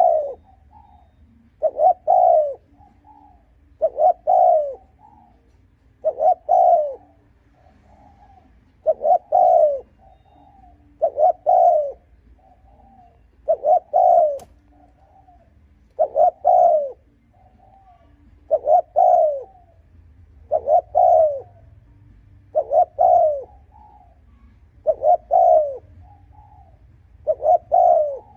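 Spotted dove cooing: a short, low phrase of a few falling notes, repeated evenly about every two and a half seconds. This is the insistent cooing used to rouse a decoy dove.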